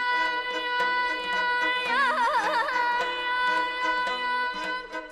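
A singer in a high, ringing register performing Azerbaijani mugham, holding long notes and breaking into a quick warbling trill about two seconds in, over plucked tar strings.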